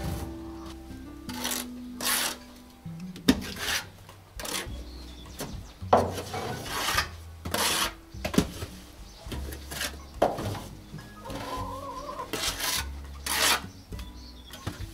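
Plastering trowel scraping wet cement mortar onto a rough brick and cement wall, a series of rough scrapes at an uneven pace of roughly one a second. Background music plays underneath.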